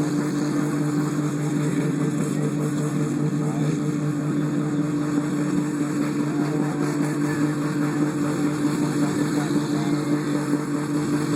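Demolition derby car engines running at steady high revs, a continuous drone with no break. Some are being held at high rpm, which the commentator puts down to rev limiters.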